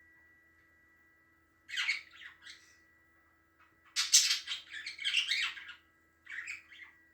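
Pet budgerigar chattering and squawking in three short scratchy bursts, the longest and loudest in the middle.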